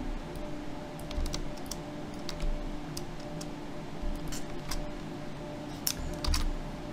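Irregular clicks of computer keyboard keys, a few scattered taps every second, over a faint steady electrical hum.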